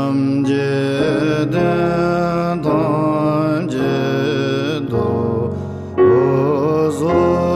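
A man's deep voice chanting a Tibetan Buddhist mantra in long held, slightly wavering notes over a sustained keyboard accompaniment.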